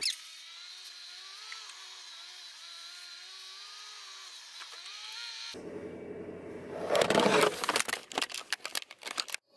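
Car moving slowly through an underground parking garage, heard from inside the cabin: faint steady noise with a thin wavering whine. About halfway through, a louder rushing noise comes in, then a quick run of knocks and scrapes, and the sound drops out just before the end.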